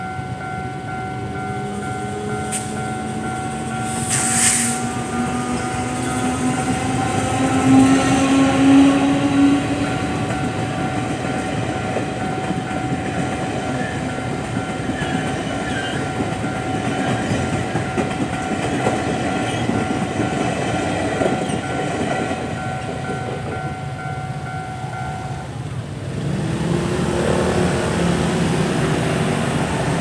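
Level-crossing warning bell ringing steadily as an electric locomotive hauling Chu-Kuang passenger cars passes, with a hum rising in pitch as it approaches and the cars rumbling and clattering over the rails. The bell stops about 25 seconds in, and motor scooters pull away across the tracks.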